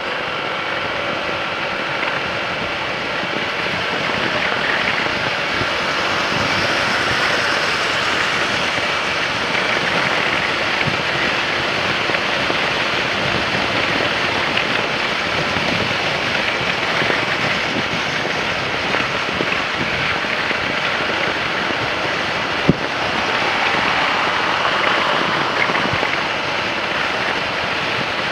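Steady rush of wind noise on the microphone of a moving motorcycle, with engine and road noise underneath. One sharp click comes late on.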